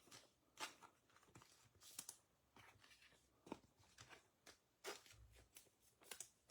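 Faint handling of trading cards: scattered soft clicks and rustles as cards are slid and shuffled.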